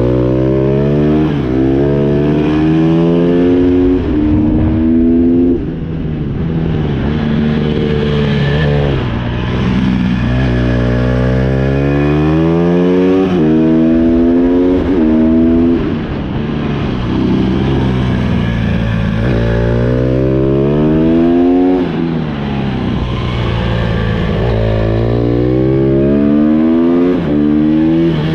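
Honda CRF150R's single-cylinder four-stroke engine revving hard through the gears: its pitch climbs, drops back at each upshift and climbs again. About every five or six seconds it eases off for a corner, then pulls hard again.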